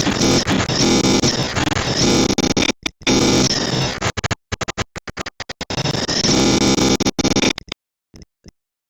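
Loud, heavily distorted noise with synthesizer-like tones, breaking into rapid stuttering cuts from about three seconds in. It drops out near the end, apart from two short blips.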